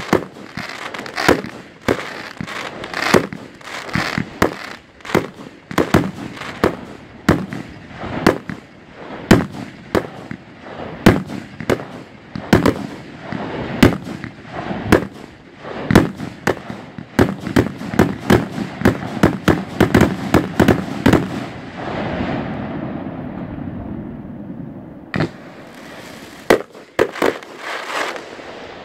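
Aerial fireworks bursting in rapid, overlapping bangs with crackling. About three quarters of the way through, the bangs give way for a few seconds to a steadier rushing noise, then sharp bangs resume.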